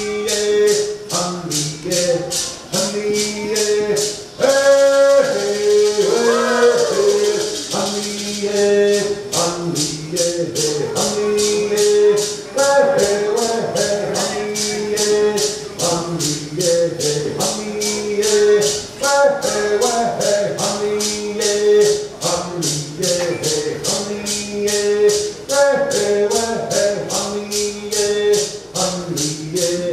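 Cherokee social dance song: voices singing a chant over a steady shaken rattle beat of about two to three strokes a second.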